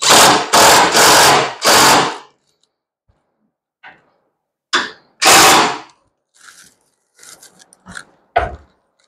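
Cordless power driver running in short bursts, four in the first two seconds and two more about five seconds in, driving in the backrest mount's bolts. A sharp knock comes near the end.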